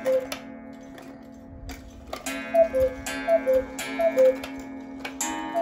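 Hones chalet cuckoo clock calling, its falling two-note cuckoo repeated several times about every three quarters of a second, with clicks from the movement. The call was set off by turning the minute hand by hand.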